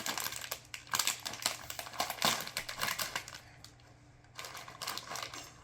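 Plastic snack bag being torn open and crinkled, a rapid run of crackles and snaps that pauses briefly and then resumes with a few more crinkles near the end.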